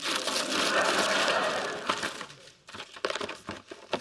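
Wrapping paper tearing and crinkling as a gift is unwrapped, loud and continuous for about two seconds, then broken into scattered crackles and clicks of paper and cardboard as the box is opened.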